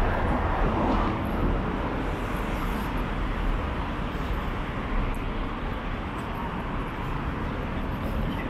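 Steady city street ambience: road traffic going by, with no single sound standing out.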